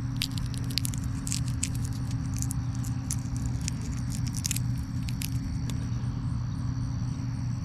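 A steady low machine drone from harvest equipment, most likely the combine's engine running, with irregular light clicks and crackles over its first few seconds as dry soybean pods and beans are handled and opened by hand.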